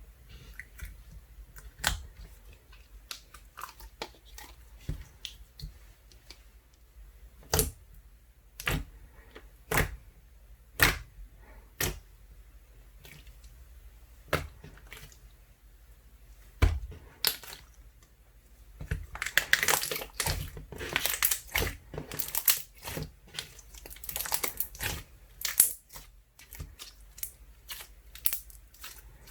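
Slime being squeezed and pressed by hand: scattered sharp clicks and pops, then a dense run of crackling clicks about two-thirds of the way in.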